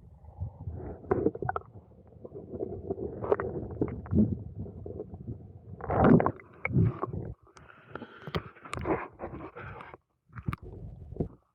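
Kayak and paddle moving through shallow creek water: irregular sloshing, knocks and scraping, with a louder thump about six seconds in.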